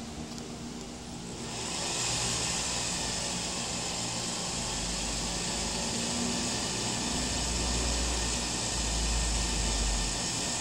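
Industrial sewing machine's motor running with a steady whir and hiss that comes on about a second and a half in, with intermittent low rumbles later on.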